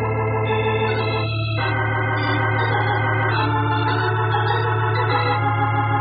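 Radio-drama organ bridge marking a scene change: sustained organ chords that shift to new chords three times.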